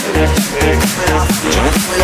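Electronic dance music from a bootleg remix, with a heavy kick and bass pulsing on every beat, about two beats a second, under a busy synth layer.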